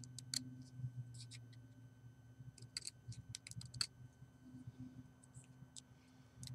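A small knife blade shaving the end of a wooden chopstick to round it off: faint, scattered short scrapes and clicks, over a low steady hum.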